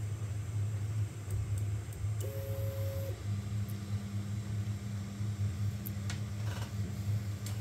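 Elegoo Neptune 4 Pro 3D printer's stepper motors moving the print head and bed, over a steady low hum. About two seconds in there is a higher two-note whine lasting about a second, then a lower steady motor tone from about three seconds on.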